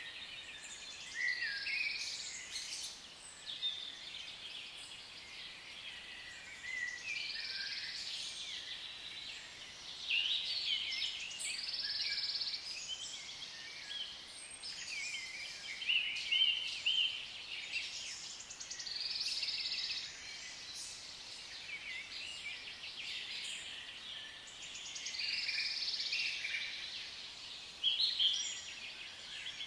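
Forest ambience of many birds calling and chirping in overlapping phrases every few seconds, with some fast buzzing trills mixed in.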